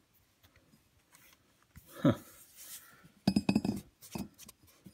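Light metallic clinks and rattling, a quick run of them a little after three seconds in, as a hand handles the metal bolts and hub of a diesel engine's crankshaft pulley. A brief, louder sound falling in pitch comes about two seconds in.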